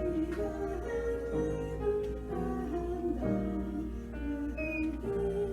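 Slow music: a held melody line with vibrato over instrumental accompaniment, notes changing about every half second. A steady low hum runs underneath.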